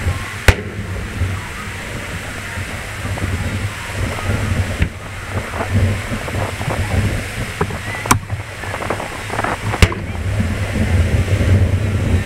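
Aerial firework shells bursting: four sharp bangs, the loudest about half a second in and the others near five, eight and ten seconds, over a steady low rumble.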